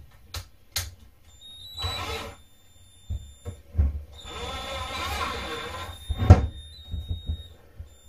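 Cordless drill-driver driving screws into a kitchen base cabinet: a short run with a thin motor whine about two seconds in, then a longer run of about two seconds, amid handling clicks and a sharp knock just after six seconds.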